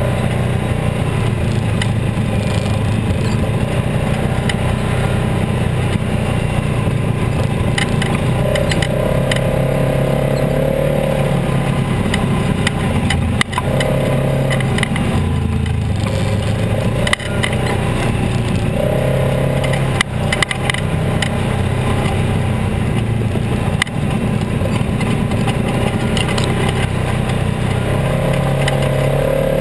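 Polaris RZR XP 900 side-by-side's twin-cylinder engine running as it crawls over rough ground, the engine note rising and falling with the throttle. A few sharp knocks and brief dips in loudness break in.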